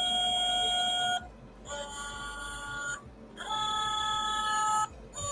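A Fisher-Price electronic plush toy's sound chip playing a series of steady electronic tones. Each tone is held for about a second, with short breaks between them: three tones, and a fourth starting right at the end.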